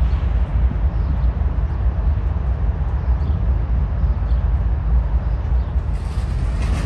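Freight train of boxcars, centerbeam flatcars and tank cars rolling past, a steady low rumble of wheels on the rails.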